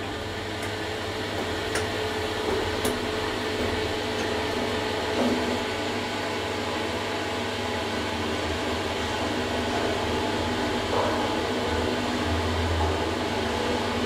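2011–2012 SMW traction elevator running, heard from inside the moving car: a steady hum and whir with a faint motor whine that steps down in pitch about five seconds in. A few light clicks come in the first three seconds.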